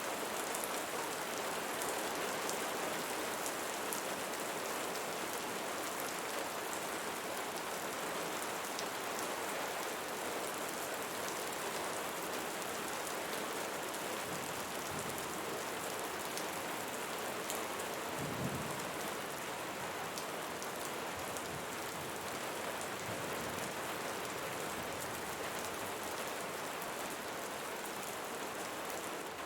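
Steady rainfall hissing evenly, with scattered ticks of single drops. A brief low thump sounds a little past halfway.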